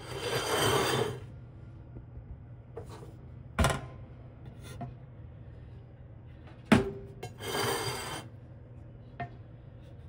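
Black and Decker toaster oven's metal rack and tray being handled: a rasping metal scrape as something slides out at the start and again near the end, with two sharp knocks in between, the second the loudest, and a few small ticks. A low steady hum runs underneath.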